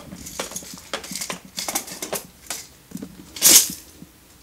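Small plastic storage boxes and a little jar of metal embellishments being handled inside a fabric bin: light clicks and rustling, with a louder, longer rattle about three and a half seconds in.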